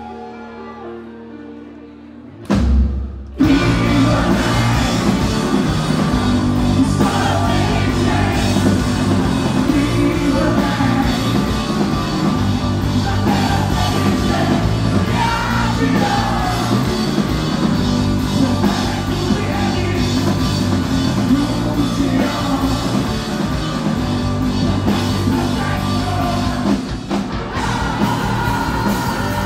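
Live rock band: a quiet passage of held electric-guitar notes, then a drum hit and the full band crashing in loud about three seconds in, with distorted electric guitars, bass guitar and drum kit playing on.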